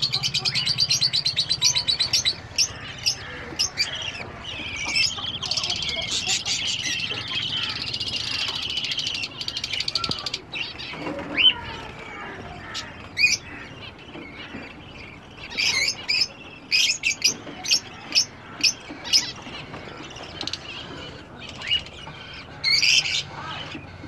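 Small caged parrots chirping and chattering. It opens with a fast run of repeated high cheeps, then a few seconds of steady twittering, then scattered sharp chirps.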